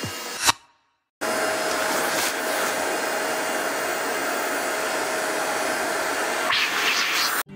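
A household electric appliance's motor and fan running steadily with an even whoosh and a faint steady whine. The whine drops out near the end, and the sound cuts off suddenly.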